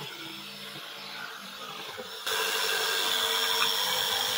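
Jigsaw running steadily as its blade cuts a curved opening through painted plywood. About two seconds in it suddenly gets louder.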